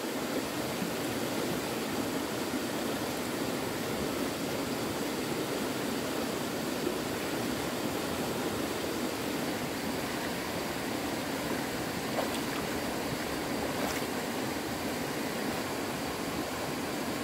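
Stream water flowing and splashing steadily, with a faint tick or two near the end.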